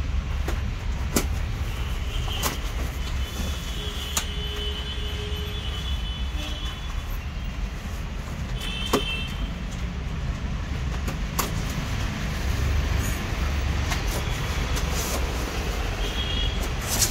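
Steady low background rumble, with scattered sharp clicks and knocks and a few brief high tones.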